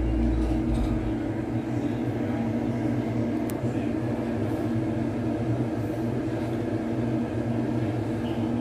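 Steady low mechanical hum, such as a motor or fan running; a deeper rumble underneath drops away just under a second in.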